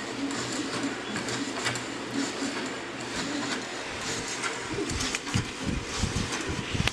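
A 3D-printed band saw running steadily, its small 12-volt motor and blade making a continuous mechanical whir. From about halfway, irregular low bumps join in.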